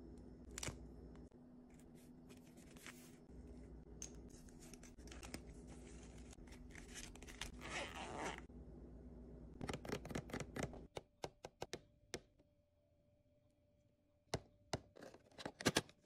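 Long fingernails tapping and scratching on miniature toy items, holographic stickers, a plush mini bag and plastic packaging, in scattered sharp clicks and short rustles, with a brief near-quiet gap about two-thirds through.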